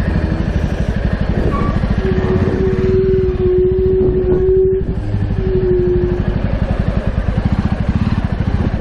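Jawa motorcycle's single-cylinder engine running at low revs with an even exhaust beat as the bike idles and creeps along at walking pace. About two seconds in, a steady tone sounds for nearly three seconds, then again briefly.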